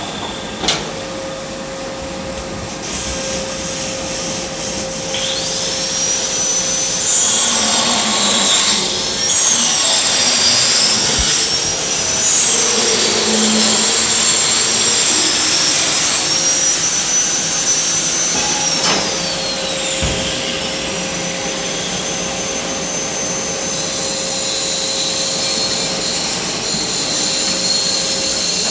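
High-speed power tools running steadily, their whine dipping in pitch and climbing back again and again as they bite into the work and come free.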